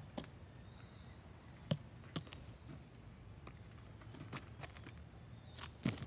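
Small garden birds chirping and twittering, broken by a few short, sharp knocks or taps, the loudest one near the end.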